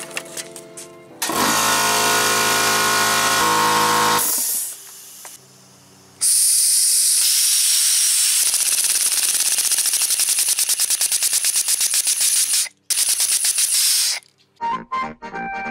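Small 3D-printed pneumatic rotary engine running on compressed air: loud hissing air in two long bursts. The second burst lasts about six seconds and pulses rapidly as the rotor spins and exhausts through its ports.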